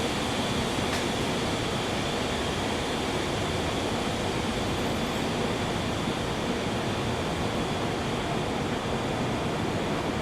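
Steady pink noise, a constant even hiss, broken by a single sharp click about a second in and another near the end.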